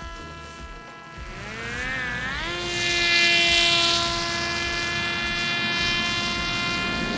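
Parrot Disco flying wing's electric pusher motor and propeller whining in flight. The pitch wavers and rises about two seconds in, louder for a moment, then holds a steady whine.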